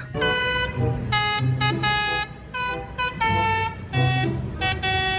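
Tour bus's multi-tone 'telolet' horn playing a quick tune of short notes that jump between pitches, over low traffic noise.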